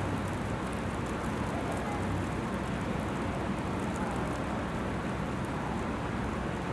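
Graupel (small ice pellets) falling and hitting surfaces, a steady even hiss.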